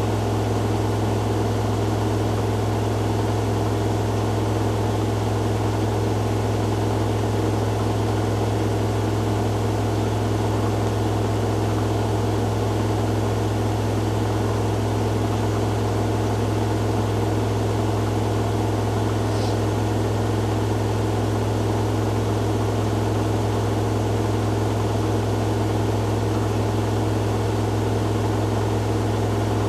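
Two front-loading washing machines, a Hoover Dynamic Next DXA610IW3 and a Whirlpool AWM1850, spinning together at speed: a steady machine hum with a strong low drone and no change in pitch.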